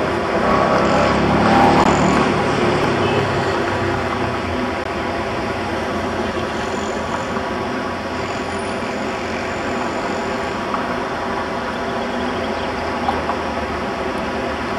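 Tram running, with a steady rumble that swells louder about one to three seconds in and then evens out.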